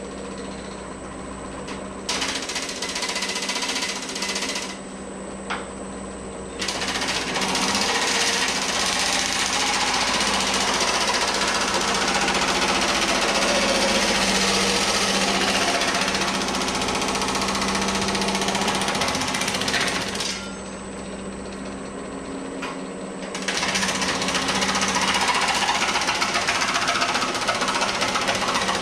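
Pullmax reciprocating sheet-metal machine running, its custom dies rapidly hammering a steel patch panel. A steady motor hum continues throughout, and the loud rapid chatter of the dies on the metal comes in stretches: about 2 to 4 seconds in, from about 7 to 20 seconds, and again from about 23 seconds on.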